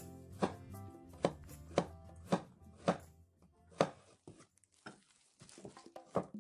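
Cleaver slicing ginger on a bamboo cutting board: six sharp knocks of the blade on the board, about one every half second, then a few lighter taps near the end.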